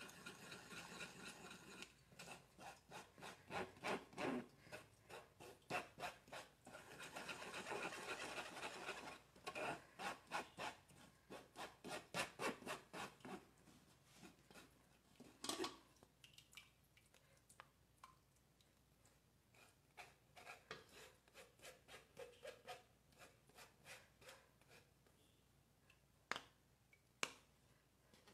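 Faint rubbing and scraping of a wooden spoon pressing a thick nut mixture through a fine-mesh metal strainer, in quick repeated strokes. The strokes are steady for the first half, then thin out to scattered scrapes and a few sharper taps.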